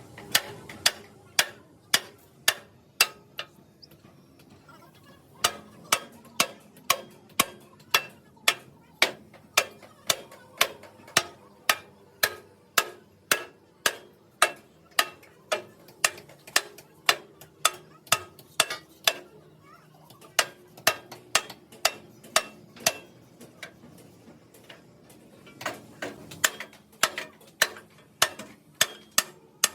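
Hammer blows on steel in a steady rhythm of about two to three strikes a second, in runs broken by a few short pauses.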